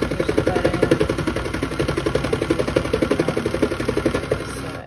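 Battery-powered Cool Maker toy sewing machine running, its motor driving the needles in a rapid, even rhythm of strokes as fabric is fed under it. It stops suddenly near the end.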